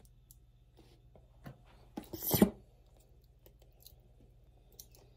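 Plastic squeeze bottle of Hidden Valley bacon ranch dressing being squeezed, with a short squirt of dressing and air about two seconds in and a few faint clicks around it.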